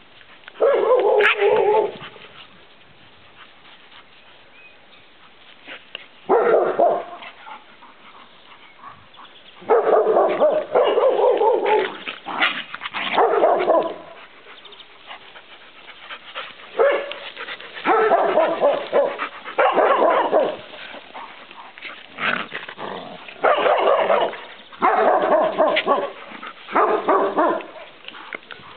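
Dogs barking in play, in about ten short, rough bouts with quiet gaps between.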